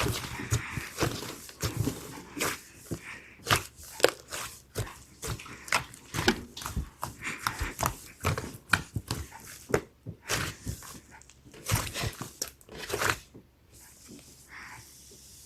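Slime being squeezed and kneaded by hand, with many quick irregular sticky clicks and pops from air bubbles in it. The sounds die away near the end.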